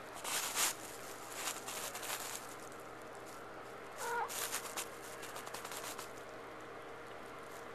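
Domestic cat shut in a room, scratching and rattling at the closed door in short bursts, with one short meow about four seconds in: the cat wants out.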